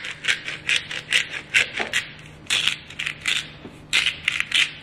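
Black pepper grinder twisted by hand over the pot, crunching peppercorns in quick short strokes, about three or four a second, with two brief pauses.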